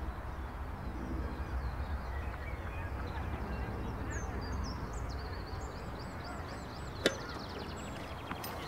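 Tennis court ambience: a steady low outdoor rumble with birds chirping, and a sharp tennis ball strike about seven seconds in, with another at the very end.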